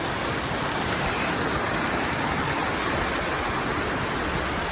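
Waterfall rushing steadily, a continuous hiss of falling water.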